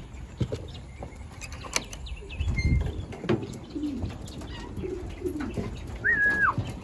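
Racing pigeons cooing repeatedly, with scattered light clicks and knocks, a dull thump about two and a half seconds in, and a short high squeak that falls away near the end.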